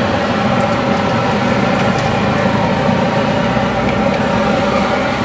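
Steady mechanical hum with several held tones over a low rumble and a hiss, unchanging throughout.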